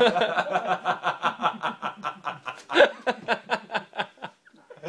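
Hearty laughter: a long run of quick 'ha-ha' pulses, about five a second, peaking near the three-second mark and dying away about four seconds in.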